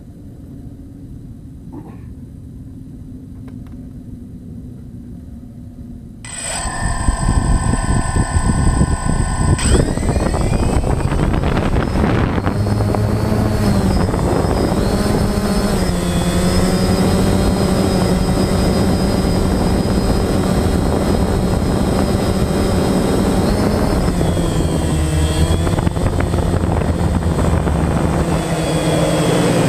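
DJI Phantom quadcopter's motors and propellers: a low hum, then about six seconds in a sudden loud spin-up as it lifts off. After that comes a steady, multi-tone buzzing whine in flight, with brief dips in pitch around the two-thirds mark and near the end. The owner calls it a strange motor noise.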